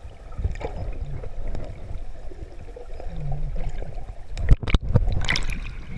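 Muffled underwater sound heard through a waterproof camera housing: a low rumble of moving water. From about four seconds in come sharp splashes and sloshing, as the camera comes up through the surface.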